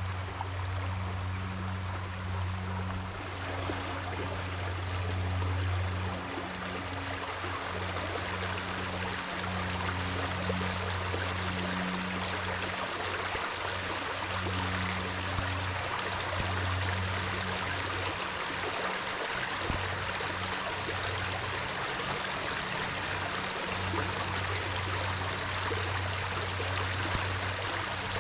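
Shallow rocky woodland stream running and trickling over stones, a steady rush of water. Under it is a low steady hum that drops out now and then.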